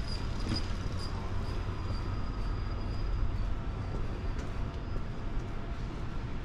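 City street ambience: a steady low rumble of distant traffic, with a faint thin high tone that weakens a little past halfway.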